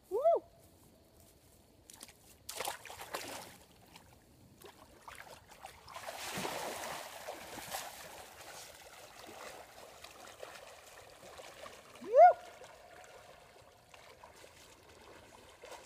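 A man plunging into a cold lake: a rush of splashing water about six seconds in, with smaller water sounds before and after it. Two short rising cries are the loudest sounds, one right at the start and one about twelve seconds in.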